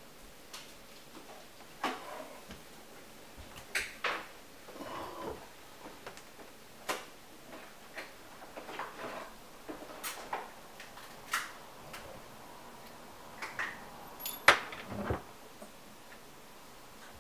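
Irregular clicks, taps and knocks of hand tools and metal plumbing fittings being handled while a water shut-off valve under a sink is replaced, with one sharper clank near the end.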